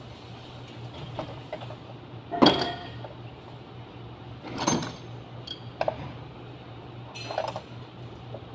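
Hand tools and metal engine parts clinking and clattering as they are handled in a car's engine bay: several separate knocks with a light ring, the loudest about two and a half seconds in, over a steady low hum.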